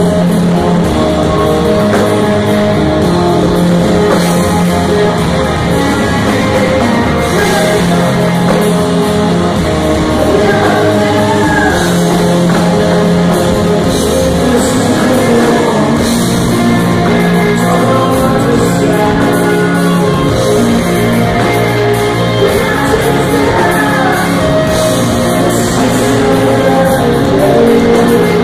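Live rock band playing: electric guitars, bass guitar and drums in long sustained chords, with a male lead voice singing over them.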